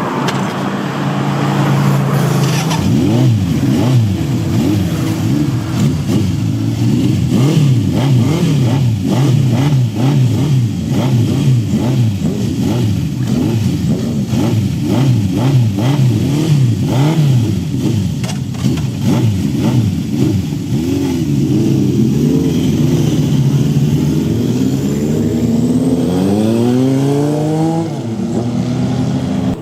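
Honda CB750 Four's air-cooled inline-four engine revving up and down over and over. Near the end comes a run of quick rising revs.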